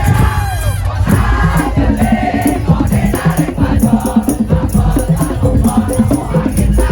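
Madurese tong-tong percussion ensemble music: heavy drumming under a rapid, steady pattern of pitched percussion, with a rattle or shaker and a wavering melodic line about a second in.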